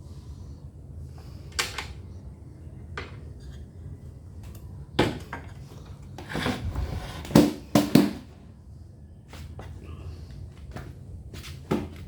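Scattered clicks and knocks of hand tools and parts being handled on a small gasoline inverter generator during a spark test, with a cluster of louder knocks and a brief scrape about five to eight seconds in.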